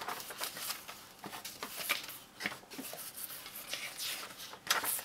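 Pages of a thick, nearly 600-page paper instruction book being turned by hand: a run of short rustles and flaps, with a louder flip near the end.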